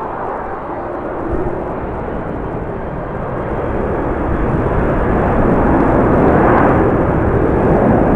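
Jet airliner engines: a steady rushing noise that swells louder about halfway through as the aircraft nears. Strong wind buffets the microphone underneath.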